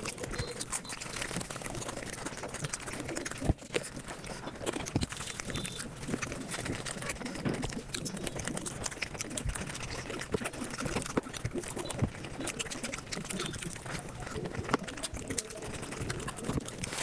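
Eating sounds played back at high speed: chewing, smacking and crunching run together into a dense stream of fast clicks and crackles. A sharper click stands out about three and a half seconds in.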